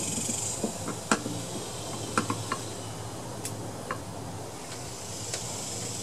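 A handful of small sharp metal clicks and taps, the loudest about a second in and a quick cluster just after two seconds, as a replacement ignition module is handled and fitted at the flywheel of a Tecumseh lawn mower engine. A steady high hiss runs underneath.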